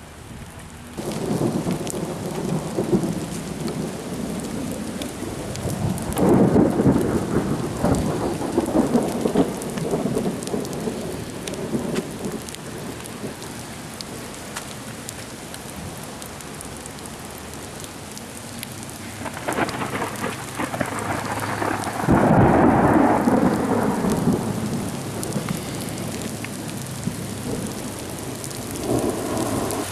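Thunderstorm: steady heavy rain with hail falling, and several long rolls of thunder, the loudest about six seconds in and again about twenty-two seconds in.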